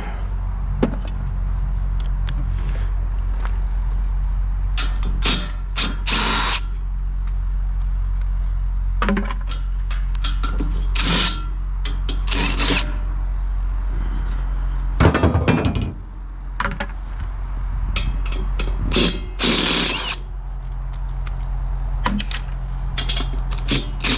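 A power drill/driver running in short bursts, with metal clanks and clicks in between, as a steel table is unbolted and taken apart. A steady low hum runs underneath.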